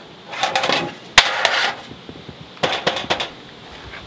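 Metal and wood being handled at a wooden smokehouse, making a run of clattering knocks and scrapes. The sharpest knock comes just over a second in, and more knocks follow near the end.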